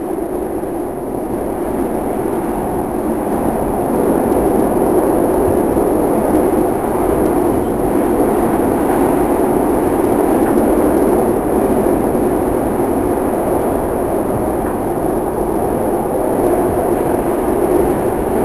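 Steady rumble inside a moving SEPTA Market-Frankford Line M4 subway car (Adtranz-built) running through a tunnel.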